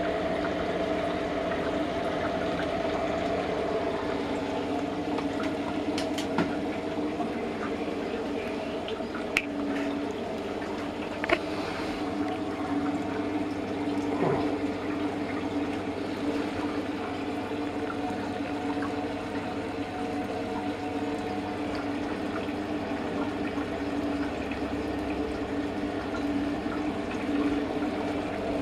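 Homemade copper pot still running: a steady rush of moving liquid with a constant mechanical hum, and a few faint clicks.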